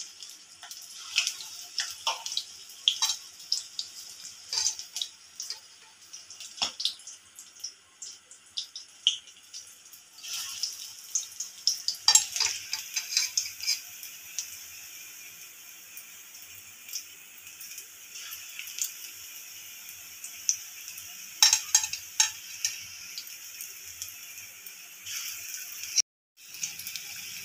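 Onion pakoras deep-frying in mustard oil in a kadhai: a steady sizzle with frequent crackling pops, in louder bursts as more batter-coated onion pieces go into the hot oil. The sound drops out for a moment near the end.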